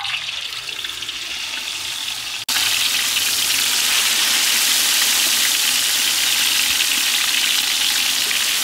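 Marinated chicken legs deep-frying in hot oil in a large wok: a steady sizzle. It is quieter at first, then after a brief cut-out about two and a half seconds in it comes back louder and stays even.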